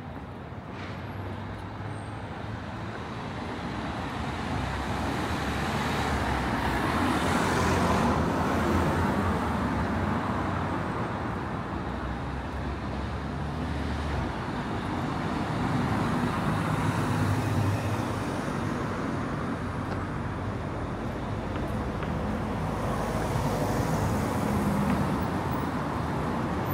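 Road traffic on a city street: vehicles passing one after another, the noise swelling and fading several times, with a low engine hum in the first half.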